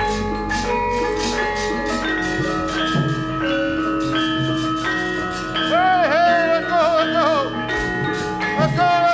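Central Javanese gamelan playing: bronze metallophones and kettle gongs are struck in a quick, steady stream of ringing notes, with occasional low drum strokes. About six seconds in, a high melodic line slides and wavers over the ensemble, and it returns near the end.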